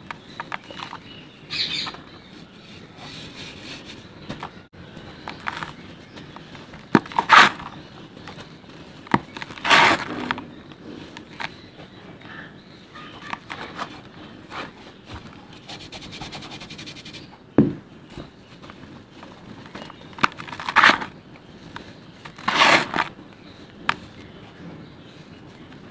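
Hands scooping, squeezing and crumbling dry red dirt in a tub: a steady gritty rustle broken by irregular louder crunches, the biggest about seven, ten, twenty-one and twenty-three seconds in.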